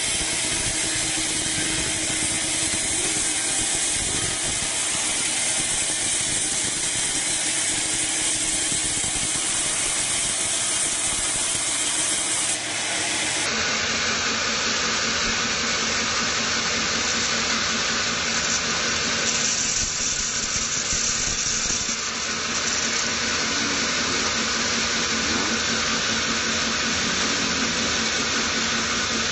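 Band sawmill ripping a teak log: the steady whir and hiss of the band saw blade cutting through the wood. The sound shifts abruptly about halfway through, after which a steady low hum runs under the cutting.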